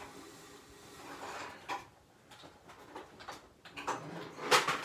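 Plastic clicks and knocks from handling a Hoover WindTunnel upright vacuum, with a louder clunk near the end.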